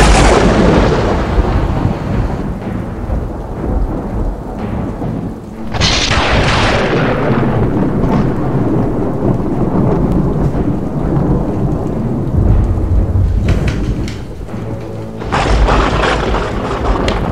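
Thunderstorm: steady heavy rain with loud thunderclaps that break suddenly and rumble away, one at the start, another about six seconds in and a third about fifteen seconds in.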